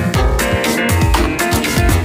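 Electronic intro music with a steady kick-drum beat, about two beats a second.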